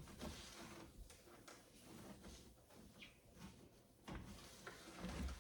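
Near silence with faint rubbing from a cloth wiping a surface, a little louder just after the start and again after about four seconds.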